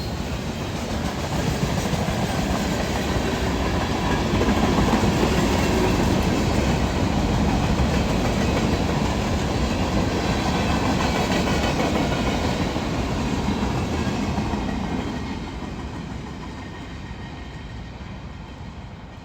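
CSX manifest freight train's cars rolling past, wheels clacking over the rail joints. The noise swells in the first few seconds, then fades away steadily through the last few seconds.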